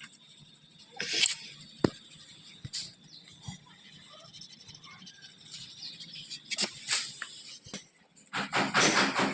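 Scattered sharp clicks and knocks, as of metal tools being handled, then a fast, even rattle of about six strikes a second starting near the end.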